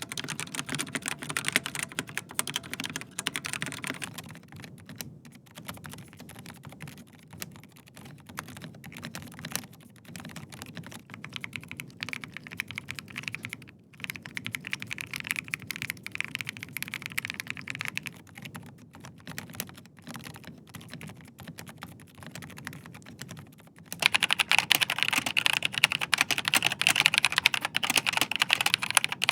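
Steady typing on a series of mechanical keyboards: a Rapture Kilo V2 with Outemu Red switches, then a Dark Project Bushido with G3ms Moonstone switches. Near the end the typing turns clearly louder and sharper on a Logitech G Pro X TKL with GX Brown switches.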